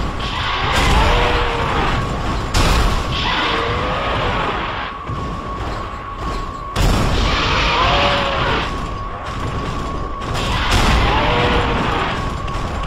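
Sound effects of a fight between giant robots and armoured heroes: heavy booms and impacts, with sudden loud hits about two and a half and seven seconds in. Over them a warbling electronic tone recurs every few seconds.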